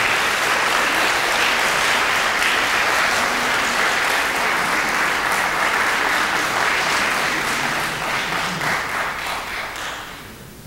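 Concert audience applauding steadily, then dying away over the last two seconds.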